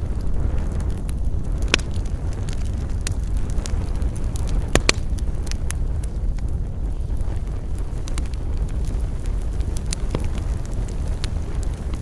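Wood fire crackling, with scattered sharp pops over a steady low rumble; the loudest pops come as a close pair about five seconds in.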